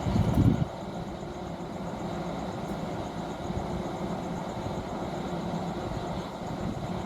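Steady mechanical hum of running machinery, with a louder low rumble in the first half second.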